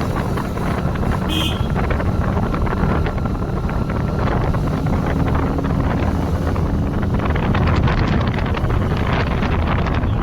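Wind buffeting the microphone on a moving motorcycle, over the steady drone of its engine; the wind gets gustier over the last few seconds.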